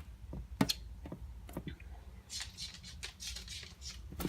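Hands working in a plastic tarantula enclosure: a few sharp clicks and taps, then about a second and a half of dry rustling and scraping as the cocoa fibre and vermiculite substrate is pushed around.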